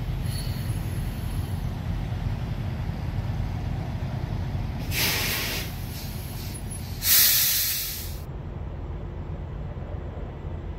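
Semi trucks idling with a steady low rumble, and two hissing blasts of truck air brakes releasing air, the second, about seven seconds in, the louder.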